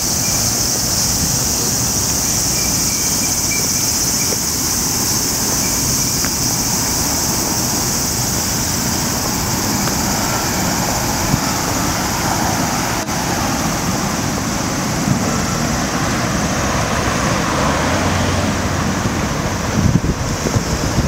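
Steady high, even buzz of a cicada chorus in the trees over constant city traffic noise. The buzz fades about two-thirds of the way through as the traffic comes to the fore, and wind buffets the microphone near the end.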